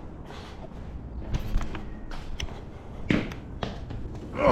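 A few light knocks and taps with quieter handling noise in between, from the tire and wheel being worked on by hand.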